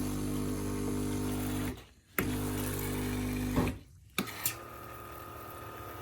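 Sage Barista Touch espresso machine's pump buzzing in two runs of under two seconds each, each starting with a click and separated by a short break, then a quieter steady hum.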